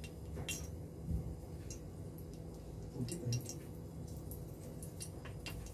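A dried red chilli sizzling faintly in a little hot oil in a kadhai, giving scattered small pops and ticks over a low steady hum.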